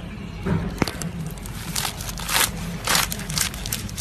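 Slime being squeezed and pressed by hand, giving off irregular crackling, crunchy pops.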